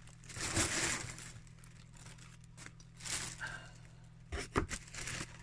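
Paper rustling and crinkling in short bursts as a softcover book and its packaging are handled, with a few light knocks, over a faint steady low hum.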